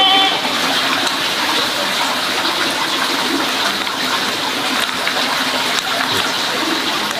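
Steady rush of running water throughout, with a short high pitched call at the very start.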